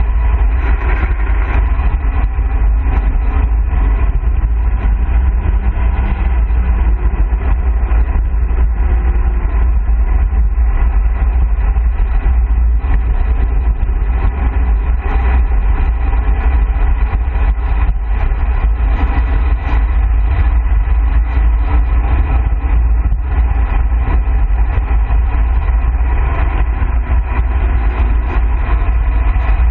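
Wind buffeting the camera microphone on a road bike descending at speed: a loud, steady low rumble with rushing air and tyre-on-road noise.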